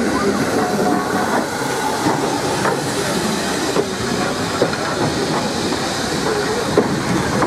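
Steam hissing steadily from SECR H class tank locomotive No. 263, close by, with scattered light metallic clanks.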